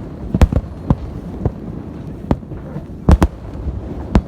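Festive fireworks salute: sharp shell bursts at uneven intervals, about eight in four seconds, over a steady low rumble. The loudest are a close pair about three seconds in.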